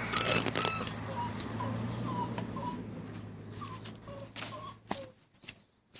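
Dog whimpering: a run of short, high whines about twice a second, over a steady low hum that stops about five seconds in.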